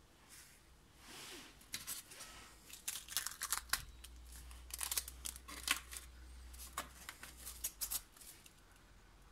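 Plastic wrapping around a CNC spindle crinkling and rustling in irregular bursts as it is handled and pulled off.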